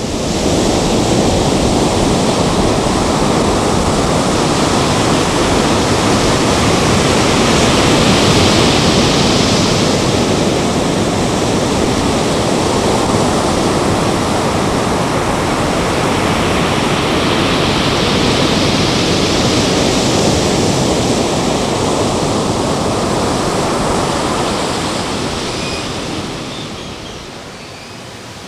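Ocean surf breaking on a beach: a steady wash of waves that swells twice, about a third and two-thirds of the way in, and fades near the end.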